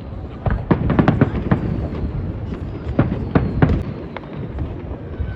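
New Year fireworks exploding: rapid clusters of sharp bangs and crackles over a continuous low rumble of distant bursts.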